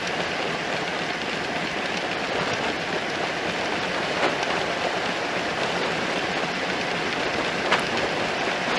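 Steady rolling hiss of a single-speed bicycle's tyres on an asphalt bikeway, sped up three times, with two short clicks, one about halfway and one near the end.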